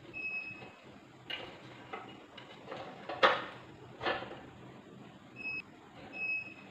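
Small clicks and knocks of a rice cooker's internal parts being handled while a thermal fuse is fitted, the sharpest knock about three seconds in. There are three brief high-pitched tones, one near the start and two near the end.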